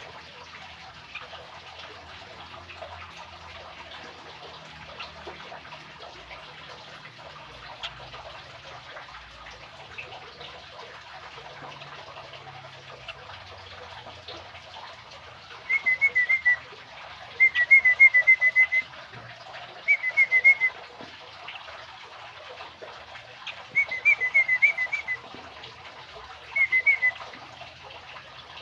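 Young sooty-headed bulbul (kutilang) calling in five short bursts of quick, high chirps, all in the second half, over a steady background hiss.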